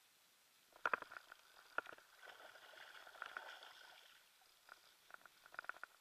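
Spinning reel and rod being worked: two sharp clicks, then a steady whirring of the reel for a couple of seconds, then a quick run of small clicks near the end.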